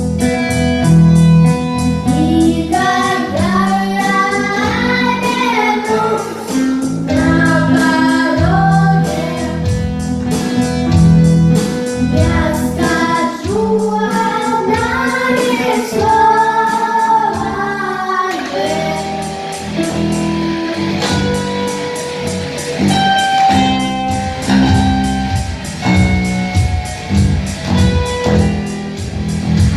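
High voices singing a rock song over strummed guitar with a steady beat; the singing stops about two-thirds of the way through and the instruments carry on alone.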